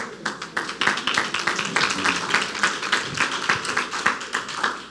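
Congregation clapping, many hands applauding in a dense, irregular patter.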